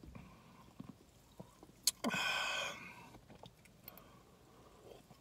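Quiet gulping and swallowing as a man drinks a carbonated drink from a can, with small wet clicks and one short breathy rush about two seconds in.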